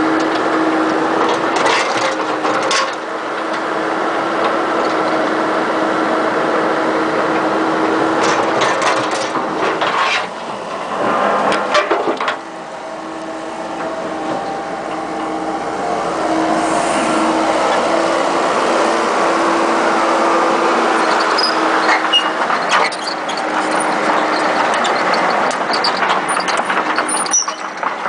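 Komatsu PC78MR-6 compact excavator working: the diesel engine and hydraulics run with a steady hum, broken by several bursts of scraping and knocking from the digging bucket, the biggest around ten to twelve seconds in.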